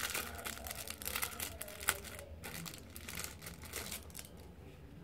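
Plastic packaging crinkling as a packaged shoe-shine rag is unwrapped by hand. The crinkling is busiest in the first two seconds, with a sharp snap about two seconds in, then thins to light rustling.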